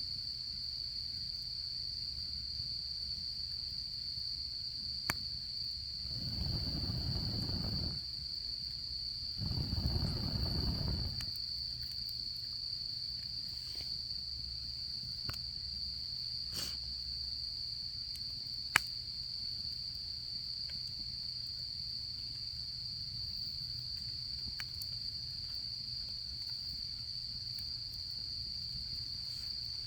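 Autumn insects chirping in a steady, continuous high-pitched trill, with a campfire giving a few sharp crackling pops. Two low whooshes rise and fade around six and ten seconds in.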